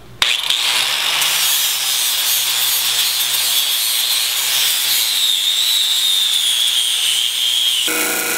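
Angle grinder with a flap wheel starts up and grinds down an aluminium block held in a vise: a loud grinding hiss with a high whine that sinks a little in pitch as it goes. Near the end it gives way to a bench disc sander running with a steady motor hum as the block is sanded flat.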